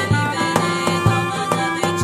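Background music: held melody notes over a steady beat of about two hits a second.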